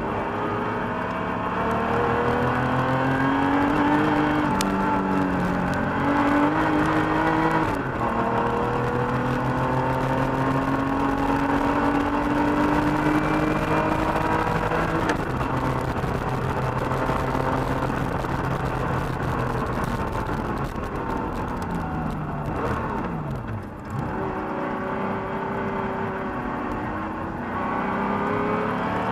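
Air-cooled 3.2-litre flat-six of a 1985 Porsche 911 Carrera heard from inside the cabin, driven hard: revs climb and fall repeatedly through acceleration, gearshifts and braking, with a shift about eight seconds in and a steep fall in revs a little over three-quarters of the way through.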